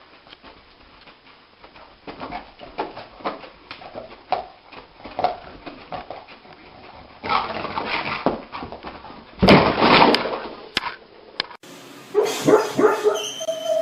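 A sleeping dog dreaming: a run of short, soft woofs and whimpers, with a louder burst about ten seconds in, then a drawn-out whine near the end.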